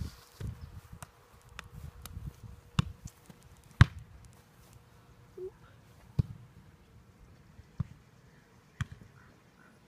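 A foot kicking a soccer ball: a sharp thump about four seconds in, the loudest of several single knocks spaced a second or more apart. A low rumble fills the first couple of seconds.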